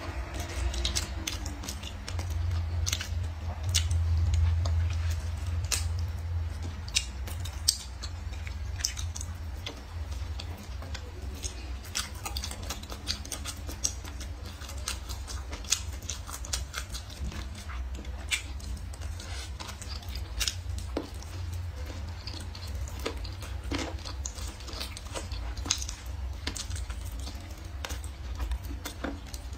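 Close-miked chewing and mouth sounds of someone eating braised pork ribs off the bone, with many sharp wet smacks and clicks scattered throughout, over a steady low rumble.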